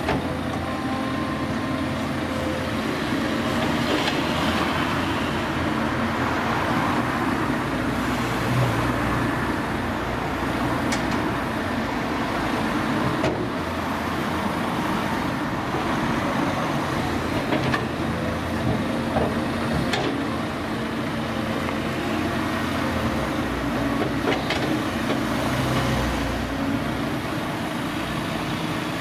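Caterpillar 323D tracked excavator's six-cylinder diesel engine running steadily under load while it digs, with a few sharp knocks now and then. Cars pass on the street in the foreground.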